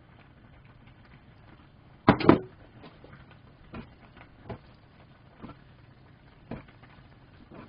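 A hand tossing and patting sesame-oiled cooked noodles on a wooden cutting board: faint soft slaps and taps about once a second, with a louder double knock about two seconds in.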